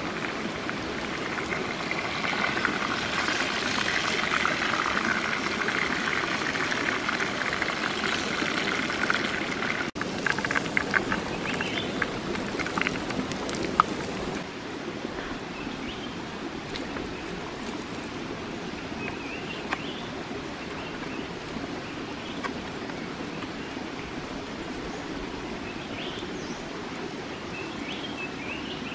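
Chicken wings sizzling in a pan over a wood fire, a dense steady hiss; about ten seconds in it gives way to a few sharp crackles, then to a softer, even rush of running stream water with occasional small clicks.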